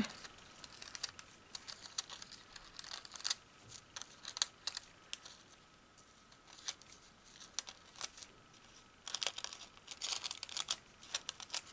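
Scissors snipping small triangles out of a sheet of thin iridescent film, with the film crinkling as it is handled: scattered sharp crackles and snips, coming in a quicker run near the end.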